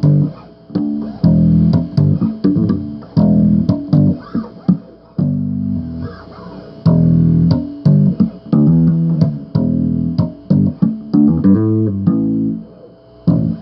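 Bass guitar played solo: plucked riffs of held and short notes in phrases, with brief gaps between them.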